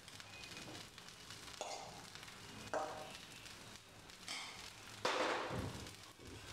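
Steel spoon scraping and tapping as filling is scooped from a steel bowl and spread over a dosa on a hot tawa, over a faint sizzle; the loudest scrape comes about five seconds in.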